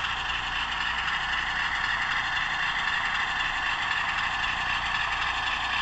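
Howes DCC sound chip in a Bachmann OO gauge Class 47 model locomotive playing a steady Class 47 diesel engine running sound through the model's small onboard speaker as the locomotive runs. The sound is thin and treble-heavy, with little bass.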